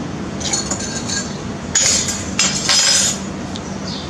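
Metal bar spoon stirring a drink in a tall glass, clinking against the glass a few times with a high ringing note; the loudest clinks come in the middle.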